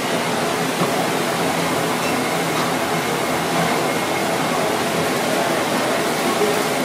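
Steady rushing noise of a commercial kitchen with its gas burners lit.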